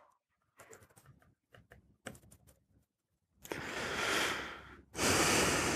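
Scattered light keystrokes on a laptop keyboard for the first couple of seconds, then two longer rushing noises of about a second and a half each, louder than the typing.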